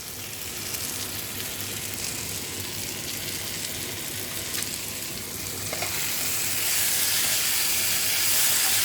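Sliced bitter gourd (karela) frying and sizzling in a pan as its water cooks off. The sizzle grows louder about six seconds in.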